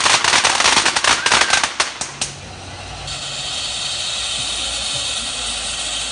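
Firecrackers popping in a rapid, dense crackling string that stops about two seconds in, followed by a steady hiss.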